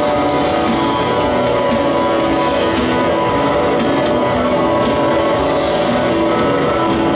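A rock band playing live: drums under long, held guitar tones, loud and steady throughout.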